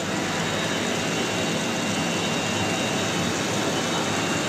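Steady running noise of a CNC router and its motors: an even hiss with a faint steady high whine over it.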